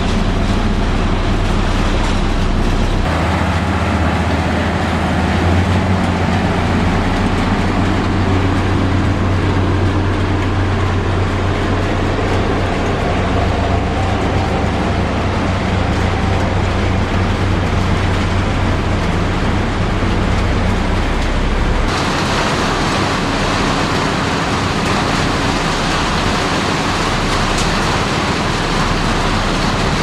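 Motor grader's diesel engine running steadily with a low, droning hum. The sound changes abruptly about three seconds in and again about two-thirds of the way through.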